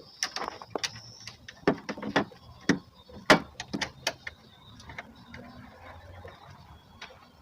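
Irregular metal clicks and knocks of tools and hardware as a vertical-door hinge is bolted to a car door, a dozen or so sharp strikes in the first four seconds, then only faint handling noise.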